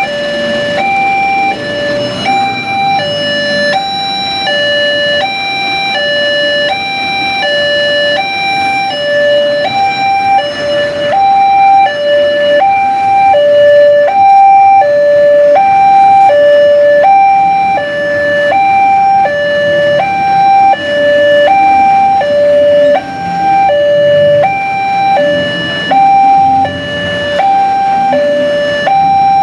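Railway level-crossing warning alarm sounding continuously: an electronic high-low two-tone signal switching about twice a second, warning that a train is approaching and the barriers are down. Road traffic rumbles underneath.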